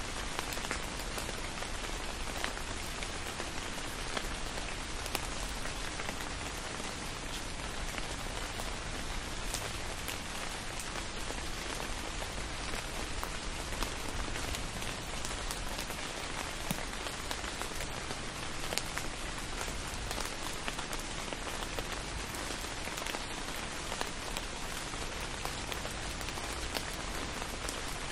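Steady rain falling, with scattered sharp drop hits and a low steady rumble underneath.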